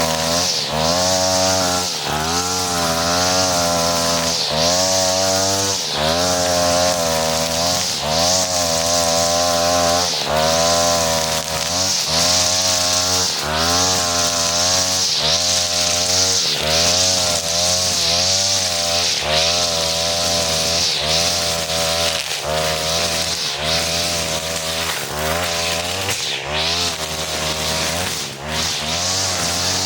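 43cc two-stroke brush cutter with a four-strand 2.5 mm nylon trimmer line head running at high revs, its pitch dipping briefly and recovering about every second and a half.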